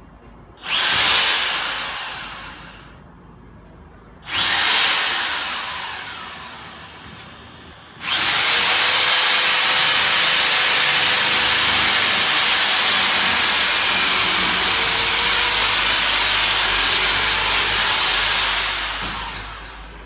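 Hammer drill boring into a concrete wall: two short bursts of a couple of seconds each, then one long run of about ten seconds that fades out near the end.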